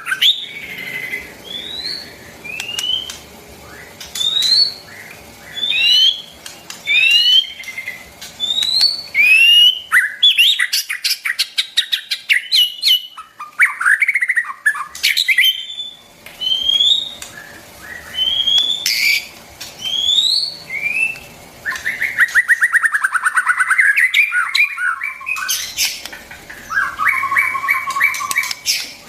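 White-rumped shama singing: a run of short, upward-sweeping whistled notes mixed with quick clicks and trills, given in separate phrases with short pauses between them. Near the end come longer buzzy, churring phrases and a steady rattling trill.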